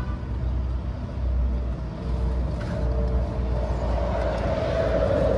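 Low, steady rumble of vehicle noise, swelling a little near the end.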